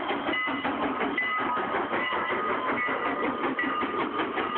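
Strasburg Rail Road No. 89, a 2-6-0 steam locomotive, passing close by with its train: a dense, rapid clatter from the engine and its wheels on the rails, with brief high tones coming and going.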